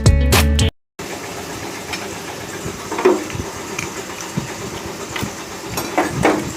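Background music that cuts off abruptly under a second in. After a brief silence comes a steady hiss of workshop background noise, with a few faint short sounds about three and six seconds in.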